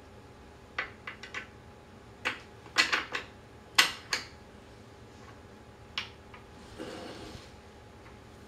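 Sharp metal clinks and taps of small hardware and tools against a wheelchair's caster fork and frame while the caster is bolted back on: a quick cluster in the first four seconds, one more about six seconds in, then a brief soft rustle near the end.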